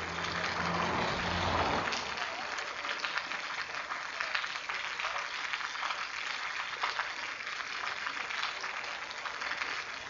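Steady rain falling: a dense, even patter of drops. A low hum underneath stops about two seconds in.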